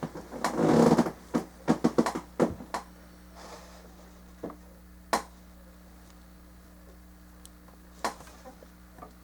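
Plastic model kit parts being handled and fitted: a brief rustle, then a quick run of sharp plastic clicks and taps, followed by a few scattered single clicks. A faint steady hum runs underneath.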